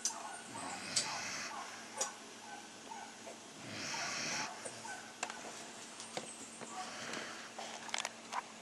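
A pet snoring, with a long, noisy breath about every three and a half seconds and a few faint clicks between them.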